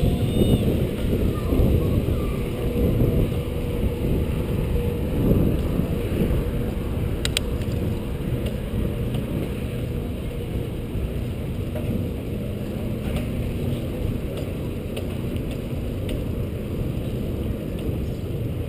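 Riding a bicycle over paving stones: a steady low rumble of wind on the microphone and tyre noise, with one sharp click about seven seconds in.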